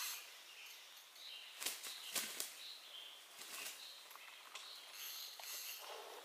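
Quiet forest ambience: soft rustles and light clicks of slow steps through leafy undergrowth, with faint high bird chirps in the background.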